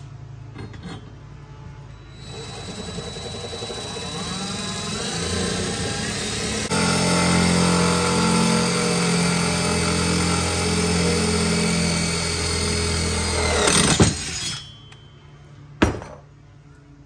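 DeWalt cordless drill boring a hole through a metal seat-mounting bracket: the motor starts about two seconds in, runs steadily as the bit cuts, gets louder about halfway through, then stops after about twelve seconds. A single sharp knock follows near the end.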